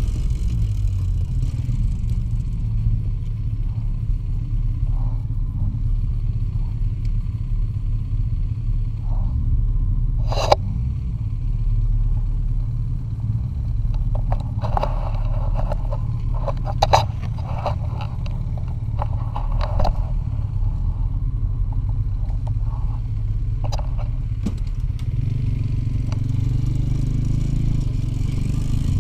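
Soviet two-stroke motorcycle engine running steadily as the bike rides along, with a scatter of sharp knocks and rattles, bunched mostly in the middle stretch.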